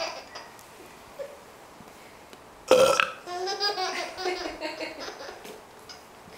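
A loud human burp about two and a half seconds in, followed by a run of laughter that breaks into quick repeated bursts and fades after a couple of seconds.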